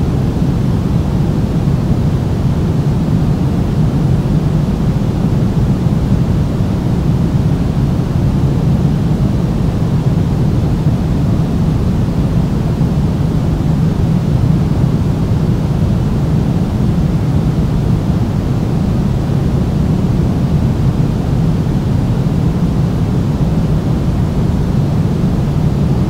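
Steady pink noise: an even, unbroken rushing hiss weighted to the low end, with no rhythm or change in level.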